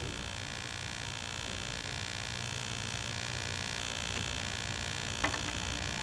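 Steady electrical hum with an even hiss underneath and no distinct handling sounds; a faint short click about five seconds in.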